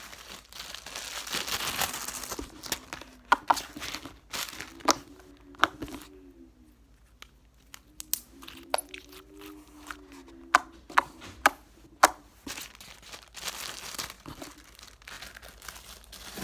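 Plastic bag crinkling and rustling while slime is worked out of it and handled, with a series of sharp clicks and pops in between.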